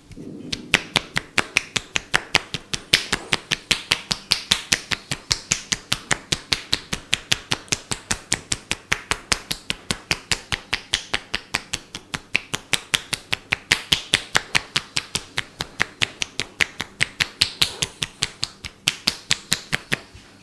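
Rapid hand tapping of a percussive massage: a steady, even run of sharp slaps, about four to five a second.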